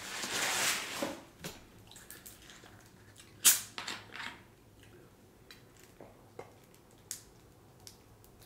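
Paper napkin rustling against the face, then a sharp crack as the plastic screw cap of a small drink bottle is twisted open, followed by a few faint clicks of handling the bottle.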